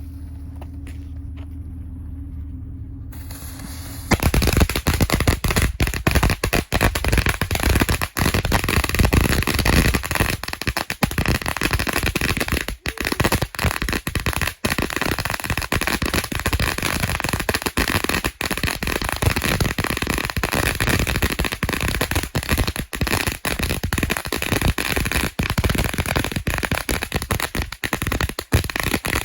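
A 1,000-count roll of firecrackers going off in a rapid, unbroken string of sharp bangs, starting about four seconds in after a few seconds of low steady rumble.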